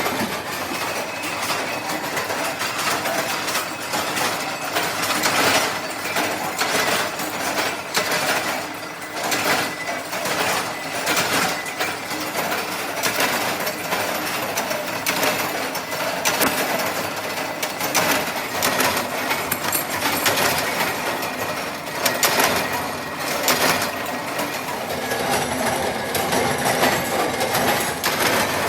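Factory machinery running, with continuous rapid clattering and knocking.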